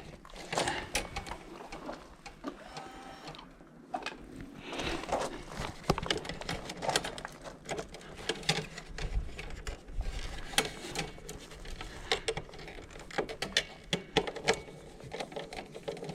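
Irregular clicks, taps and scrapes of hand work on wires and terminal screws at the neutral and ground bars of an electrical sub panel.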